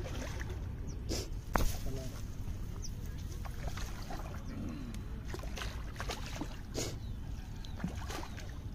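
Large hooked fish thrashing at the water's surface as it is played on a cane pole, with irregular sharp splashes, the loudest about one and a half seconds in.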